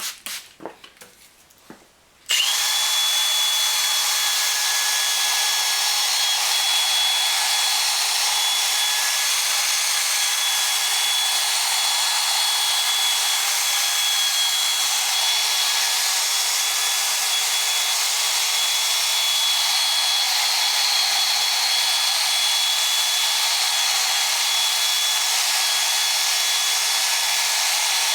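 A few faint hand-sanding strokes, then about two seconds in an electric power tool starts and runs steadily with a high whine. It is a drill-driven sanding pad working a headlight lens at 1000 grit.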